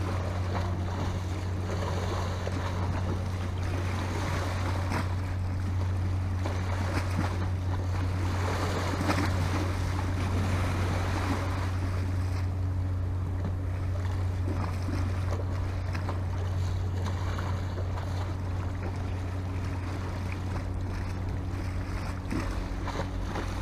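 Sea waves surging and washing against the shore, swelling and falling several times, over a steady low rumble of wind on the microphone.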